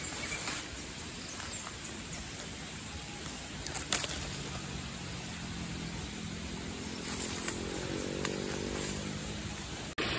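A distant engine running, its pitch climbing slowly through the second half, over steady outdoor noise, with one sharp knock about four seconds in.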